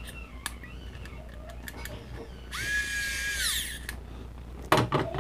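Small handheld electric screwdriver whirring for about a second, a steady whine that spins up and winds down, as it tightens a screw into a carbon fiber micro quadcopter frame. A few light clicks come before it and a knock near the end.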